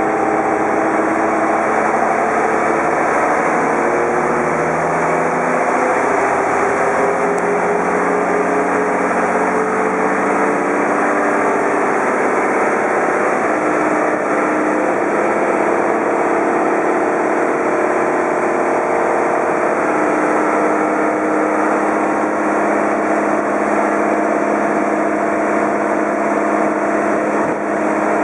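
Menarini 201/2 city bus under way, heard inside the passenger cabin: the engine's note climbs and shifts in the first few seconds, then runs on fairly steadily over road noise.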